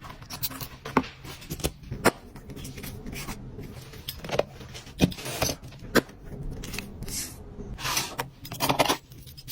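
Hands unboxing a gift box of small accessories. Irregular taps and clicks come with several stretches of rubbing and rustling from the packaging and items.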